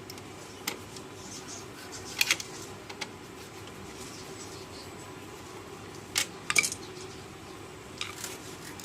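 Screws and a screwdriver clicking and clinking against the printer's parts as the screws are fitted back in. The sharp clicks are spaced unevenly, the loudest a little over two seconds in and again around six to seven seconds in.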